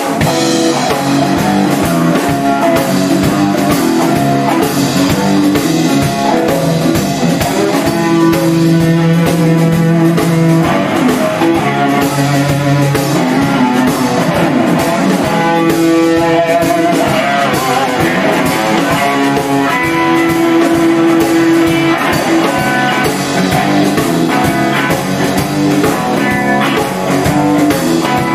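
Instrumental rock music, loud and steady: plucked and strummed guitars over a drum kit.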